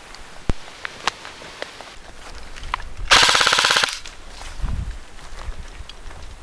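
Airsoft electric gun (AEG) firing one rapid full-auto burst of just under a second, a quick even rattle of shots, preceded by a few single sharp clicks.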